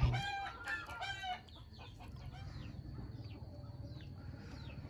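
A chicken clucking in two short bursts of high calls in the first second and a half, followed by fainter high chirps over a steady low hum.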